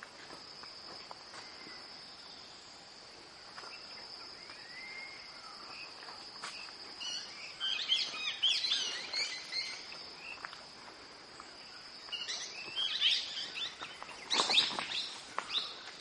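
A steady high-pitched insect drone, likely a cricket or cicada, runs through the forest, with several birds calling over it in quick bursts of chirps and whistles, once about halfway through and again near the end.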